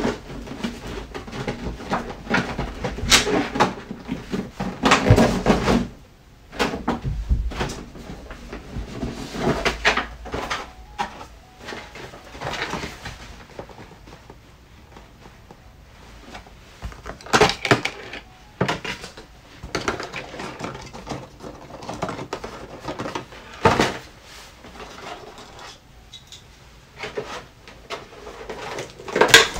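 Hands handling a boxed collectible figure and its packaging: irregular knocks, clicks and rustles. They are busiest in the first few seconds, with a quieter stretch in the middle.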